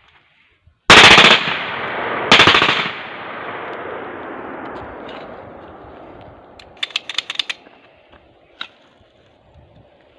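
Two rapid bursts of fire from a .30 bore (7.62×25 mm Tokarev) pistol, each about half a second long, with a long echo rolling away after them. Near the end comes a quick run of sharp metallic clicks.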